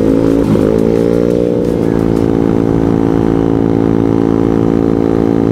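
TNT Motor Roma 50cc four-stroke scooter engine with a Leovince aftermarket exhaust, rising in pitch as it accelerates over the first couple of seconds and then running steadily at cruising speed.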